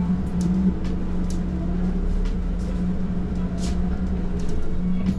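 City bus engine running steadily, heard from inside the passenger cabin, with a low hum and scattered light clicks and rattles.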